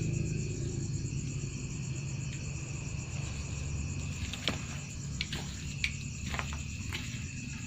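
Night insects such as crickets chirring steadily at a high pitch over a low steady drone, with a few sharp clicks around the middle of the stretch.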